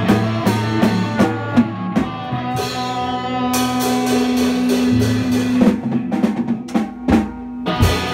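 Rock band playing live in a small rehearsal room: drum kit with bass and snare and electric guitars holding chords. Near the end the drums play a run of quick hits leading into a ringing chord.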